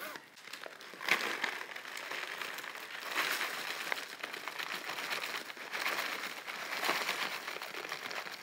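Crinkling of a freeze-dried meal pouch and a plastic zip-top freezer bag as dry beef stroganoff with noodles is poured from the pouch into the bag, with a few louder rustles.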